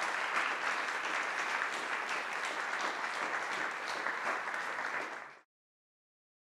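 Audience applause, steady dense clapping that cuts off abruptly about five seconds in, followed by silence.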